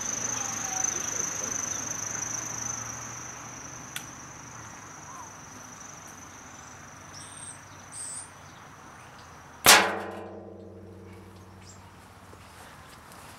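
A Toxic broadhead arrow slams into and punches through both walls of a 16-gallon steel drum: one sharp metallic bang about ten seconds in, followed by the drum ringing and dying away.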